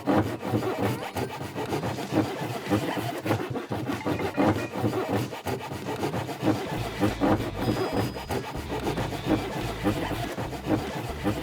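Hand saw cutting through wood in quick, repeated back-and-forth strokes.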